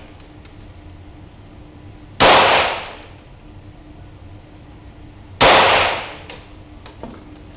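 Two shots from a Feinwerkbau AW93 .22LR competition pistol firing CCI Standard standard-velocity rounds, about three seconds apart, each sharp crack trailing off in a short echo.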